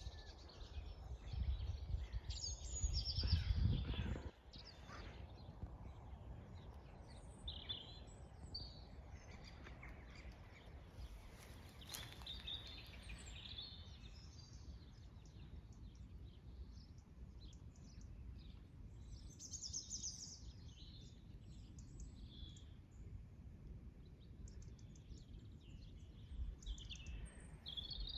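Wild birds chirping and calling outdoors, short high notes scattered throughout. A low rumble, like wind on the microphone, runs under the first four seconds and cuts off suddenly.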